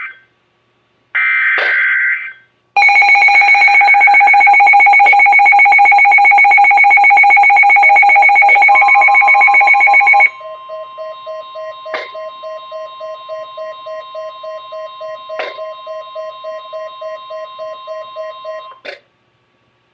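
Emergency Alert System tones: the tail of one SAME header data burst and one more short screeching burst, then a very loud steady EAS attention tone for about seven seconds. It drops to a quieter pulsing alert tone with a click every few seconds, which cuts off shortly before the end.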